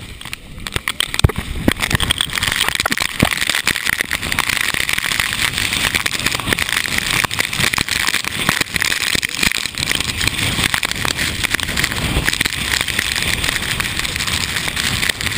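Storm-force typhoon wind and driving rain buffeting the microphone: a loud, steady rushing noise with many small clicks of raindrops striking the camera.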